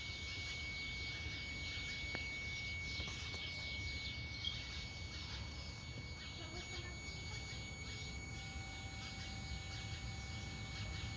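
A steady high-pitched whine, a single unchanging tone, heard in a 2013 Chevrolet Malibu as the weird noise being recorded, over a low rumble and a faint chirpy hiss.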